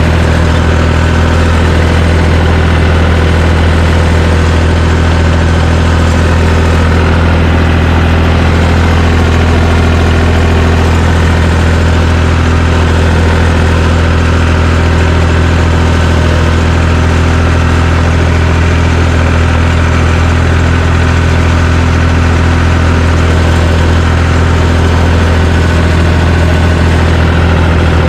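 John Deere 350 crawler dozer's engine running steadily, with a strong low drone.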